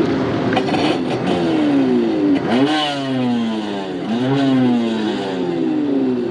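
Two-stroke racing jet ski engines revving. The pitch drops, then climbs sharply about two and a half seconds in and again near four seconds, as the throttle is worked, with more engines running under it.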